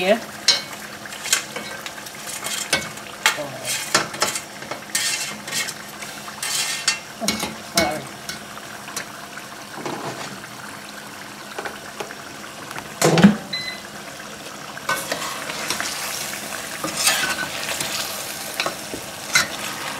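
A metal spoon scraping and knocking against a stainless steel sauté pan as chicken pieces are stirred into a tomato-vegetable stew, with irregular clinks and one loud knock about two-thirds of the way through. The stew sizzles steadily over the gas flame underneath.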